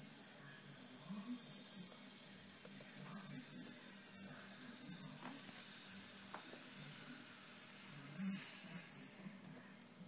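Air hissing into an evacuated vacuum chamber as it is vented slowly back to atmospheric pressure. The hiss starts about two seconds in, grows louder, and cuts off about a second before the end as the pressure evens out.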